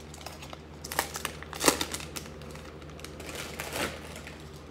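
Foil wrapper of a trading-card pack being torn open and crinkled by hand, in a few short crackling bursts, the loudest about one and a half seconds in.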